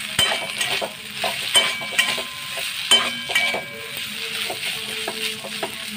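Spatula stirring and scraping sliced pointed gourd in a hot pan of oil: a steady sizzle under repeated irregular clinks and scrapes of the spatula against the pan, some ringing briefly.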